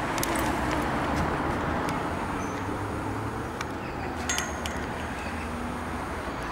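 Steady road traffic noise, a little louder in the first two seconds, with a few faint clicks.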